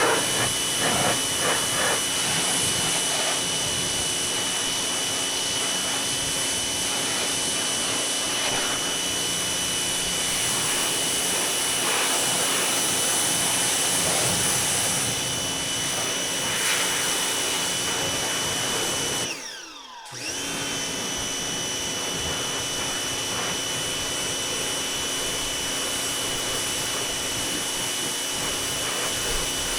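Pressure washer running steadily with a high motor whine while spraying. About two-thirds of the way through it cuts out for about a second, the whine falling, then starts up again.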